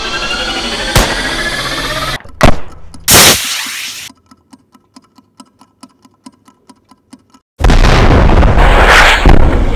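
Shoulder-fired rocket launcher firing: a rising whine, a sharp bang about two and a half seconds in, then the launch blast, which dies away within a second. After about three seconds of near silence with a rapid, regular ticking, a loud explosion breaks out near the end and is the loudest sound.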